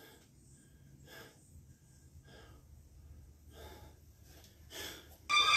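A man breathing hard in short, faint puffs, roughly one a second, from the effort of a bodyweight exercise. Near the end, loud music with held tones starts suddenly.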